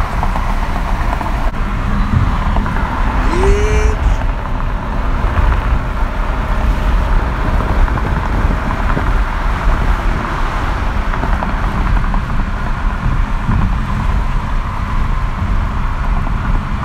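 Steady road and engine noise heard inside the cabin of a car moving at highway speed, an unbroken low rumble.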